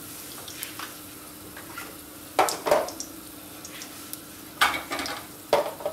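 Hot oil sizzling steadily in a kadhai with green chillies and freshly added red chilli powder and turmeric. Sharp clicks come in a pair about two and a half seconds in, then a few more near the end.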